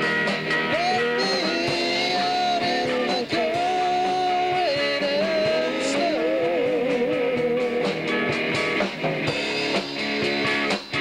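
Live rock band: an electric guitar lead plays long, bent and wavering held notes over a second electric guitar and a drum kit with cymbals.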